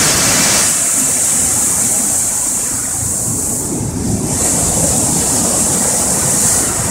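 Rough sea waves surging and breaking against a stone sea wall: a loud, continuous rush of churning surf and spray, easing briefly about four seconds in before the next wave hits.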